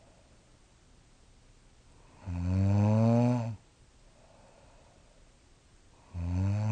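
A young woman snoring in her sleep, the uploader's 'wild animal cries': two long, deep, buzzing snores about four seconds apart, each rising in pitch as it starts, the second running on past the end. The snorer has mild sleep apnea.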